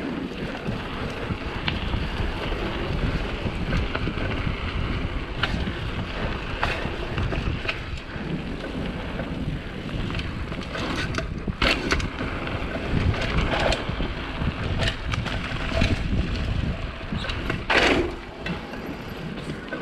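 Wind buffeting an action camera's microphone while riding a mountain bike, with frequent clicks and rattles from the bike and a few sharper knocks, the strongest near the end.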